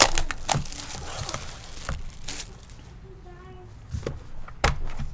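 A sealed box of trading cards being unwrapped and opened: crinkling plastic wrap and cardboard handling, with many short clicks and scrapes.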